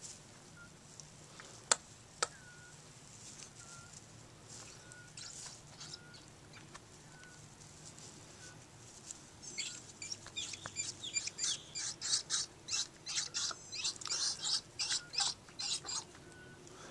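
Peafowl giving short, soft, repeated calls, with two sharp clicks about two seconds in. From about halfway through, a loud run of irregular crinkling and rustling noises lasts about six seconds.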